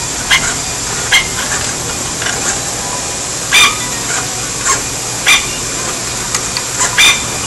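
Herdon HAM-10T spring-forming machine running: a steady hiss with a faint high whine, broken by about eight sharp metallic clacks at uneven intervals as its tools strike and form the wire.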